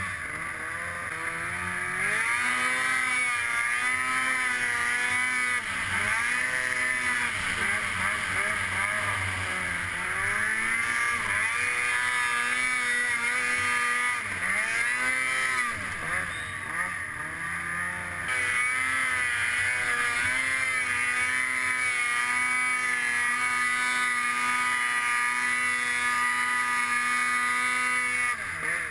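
Snowmobile engine running under throttle, its pitch rising and falling again and again as the rider works the throttle, then holding steady at high revs near the end.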